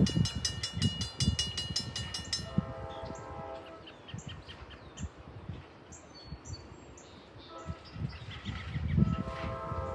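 Grade-crossing warning bell ringing rapidly, stopping about two and a half seconds in as the gates come down. An approaching train's horn then sounds from a distance, once briefly about three seconds in and again for longer near the end, with birds chirping in between.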